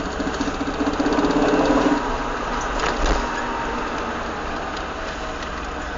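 Peugeot 306 Cabriolet 1.6i on the move, with a fast, rapid clacking for about the first two seconds, loudest just before it stops, then steady engine and road noise. This is the clacking noise that comes with acceleration in a straight line.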